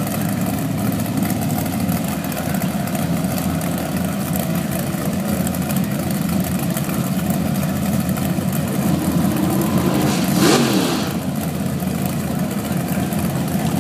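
Super Gas drag car's engine idling steadily at the starting line. About ten and a half seconds in comes a brief louder rush of engine noise that falls in pitch.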